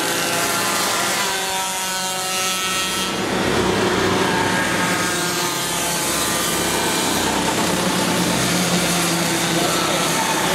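Several go-kart engines lapping together, a high, rasping buzz whose pitch drops about two seconds in and then climbs again as the karts slow for corners and accelerate out.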